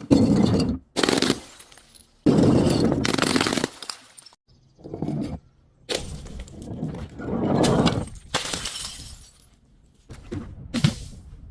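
Glass bottles breaking and being crushed: a series of loud crunching, shattering bursts, some lasting over a second, with smaller crackles near the end.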